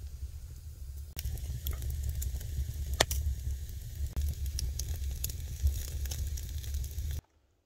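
Wood fire crackling and sizzling in a stone fireplace, with meat roasting on sticks beside the flames, over a steady low rumble. Frequent sharp pops, the loudest about three seconds in; the sound cuts off abruptly near the end.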